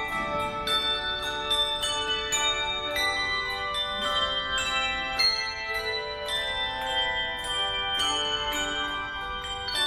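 Tuned bells playing a melody, with notes struck in quick succession and ringing on over one another.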